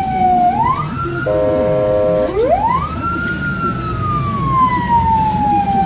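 Ambulance siren wailing, heard from inside the cab: a tone that falls slowly and then sweeps quickly back up, twice. About a second in it gives way for roughly a second to a steady horn blast before the wail resumes, over the low rumble of the van's engine and tyres.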